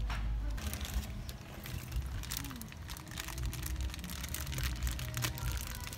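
Clear plastic bag of meatballs crinkling and rustling as hands knead and lift it in a basin of water, a dense run of small crackles, over a low steady rumble.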